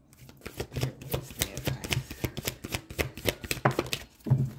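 A deck of oracle cards shuffled by hand: a quick run of papery flicks and slaps, several a second.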